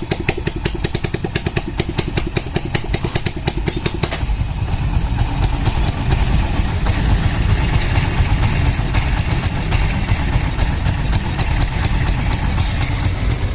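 Rebuilt Yamaha 110cc single-cylinder four-stroke motorcycle engine running after new piston rings, valves and gaskets were fitted, with a steady, even exhaust beat. About four seconds in the sound gets fuller and slightly louder.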